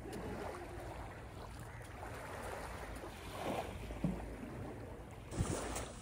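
Beach ambience: sea waves washing on the shore, with wind rumbling on the microphone. A couple of short knocks come near the end.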